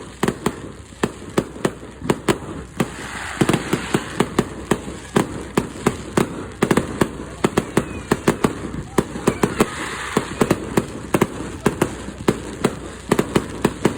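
Fireworks display in full barrage: sharp shell bursts go off several times a second, with stretches of crackling from crackle stars.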